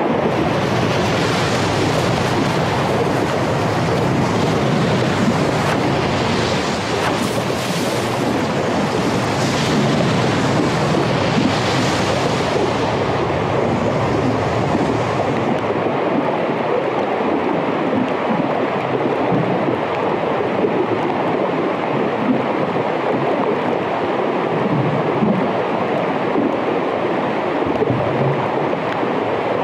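Underwater hydrophone recording of melting Arctic glacier ice: a dense, steady crackling hiss with many small clicks. The highest part of the hiss fades out about halfway through.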